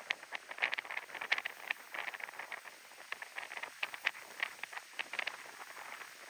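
Crunching footsteps on frozen ground, each step a cluster of sharp crackles at a steady walking pace.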